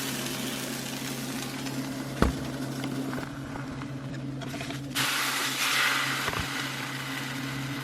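Birria tacos sizzling on a hot comal over a steady low hum. There is a single knock about two seconds in, and a louder stretch of hissing from about five to seven seconds in.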